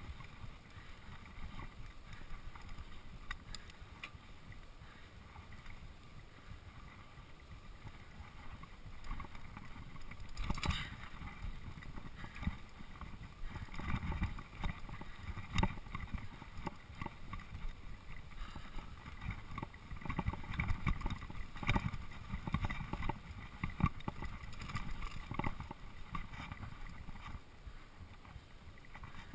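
Mountain bike riding down a dirt singletrack, with tyres rumbling over the ground and the bike rattling and knocking over bumps. The knocks come thicker about a third of the way in, and there is a little wind noise on the microphone.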